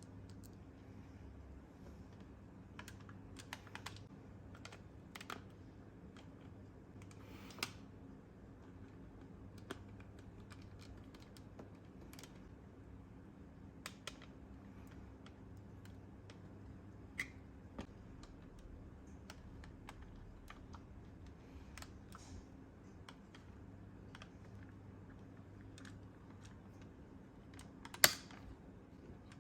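Scattered light clicks and taps from small plastic toy parts being handled, with one sharper click near the end, over a faint steady low hum.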